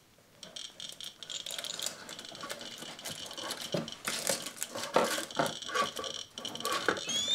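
RadiaCode 103 radiation detector ticking, the clicks coming faster and faster from about a second in as it nears a thorium gas lantern mantle, a sign of the rising gamma count rate. Knocks and rattles of objects being moved on the shelves are mixed in.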